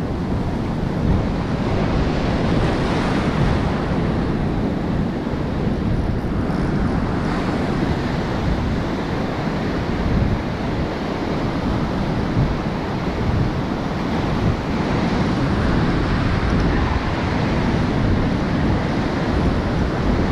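Ocean surf breaking and washing up over the sand in a steady rush that swells and eases, with wind buffeting the microphone.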